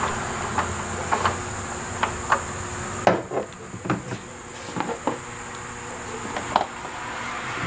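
Scattered light clicks and knocks, about fifteen at irregular intervals, of parts or tools being handled during hands-on work, with a steady high-pitched insect trill behind them that fades for a couple of seconds mid-way and comes back.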